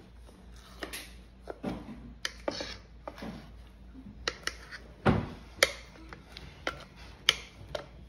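Metal spoon scraping and clinking against a stainless-steel mixing bowl as thick cornbread batter is scooped out into a metal baking pan: irregular sharp clicks and short scrapes, about a dozen, at uneven intervals.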